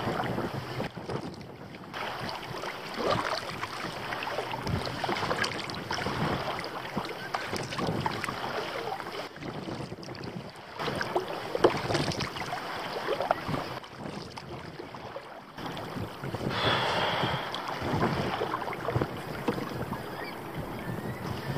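Kayak paddle strokes splashing through choppy water, with water slapping against the hull, and gusty wind buffeting the microphone.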